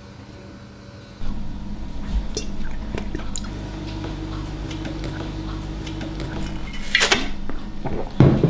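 Gravy being thrown hard against a wall. Over a steady low hum with small knocks and clicks, there is a sharp splattering crash about seven seconds in and a heavy thud just before the end.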